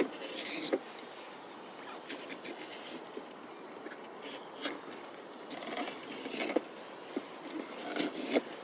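Gouge chisel pushed by hand into green birch wood, carving out a spoon bowl: short scraping cuts with small clicks, several strokes with pauses between, most of them in the second half.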